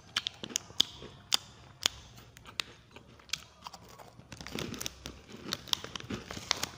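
Crispy chocolate snack cake being bitten and chewed, with scattered sharp crunches. From about four seconds in, denser crackling as the plastic wrapper is crinkled while a piece is pulled out.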